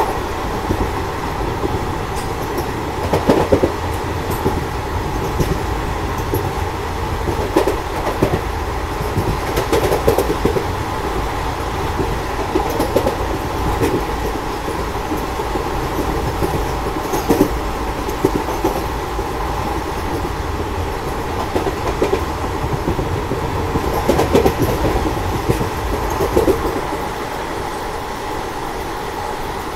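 Passenger train coach running along the line: a steady rumble of wheels on rail with wind noise, and every few seconds a louder knock or clatter, heard from beside the moving coach.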